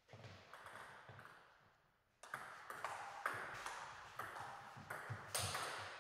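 Table tennis ball clicking: a few single taps at first, then about two seconds in a fast rally, the ball cracking off the players' bats and bouncing on the table several times a second.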